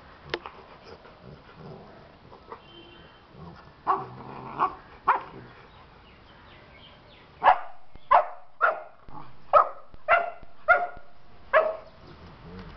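Rottweilers at play, barking in short, sharp yips: three about four seconds in, then a run of seven louder ones about two a second in the second half.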